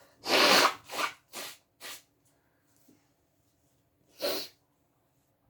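A woman's loud, pepper-induced sneeze, followed by three quick shorter bursts of breath, then one more short burst about four seconds in.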